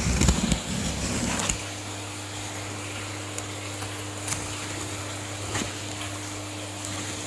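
Rustling and handling noise of a shipping box being opened for about the first second and a half, then a steady low hum with a few faint clicks.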